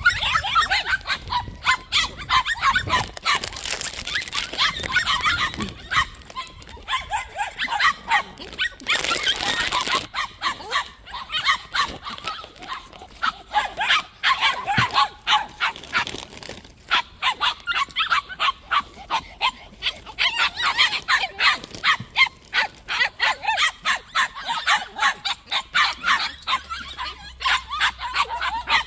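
Puppies barking and yipping in rapid, high-pitched calls, several a second, almost without a break.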